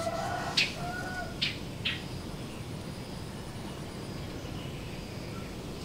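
Outdoor ambience: a steady low rumble, with three short, sharp, high chirps in the first two seconds.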